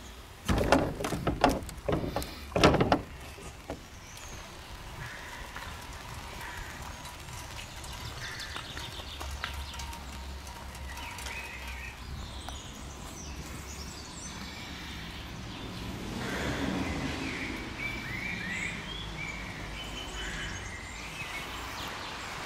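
A hand at a heavy wooden door with wrought-iron lever handles makes a few loud knocks and rattles in the first three seconds. Afterwards, scattered bird chirps over steady outdoor background.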